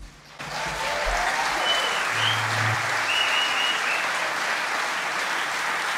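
Audience applauding, starting about half a second in once the band's final chord has cut off.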